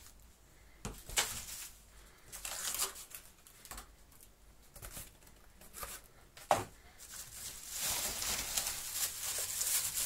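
Plastic wrapping bag and cardboard box rustling and crinkling as a packed vacuum cleaner is unpacked by hand, in scattered scrapes with a sharp knock about six and a half seconds in. Near the end the plastic bag crinkles steadily as it is handled.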